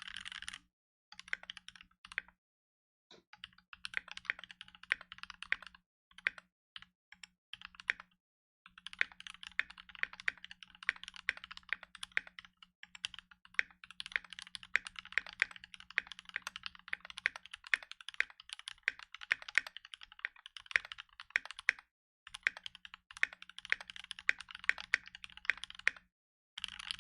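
Mechanical keyboard being typed on: rapid keystroke clacks in long runs, broken by several short pauses.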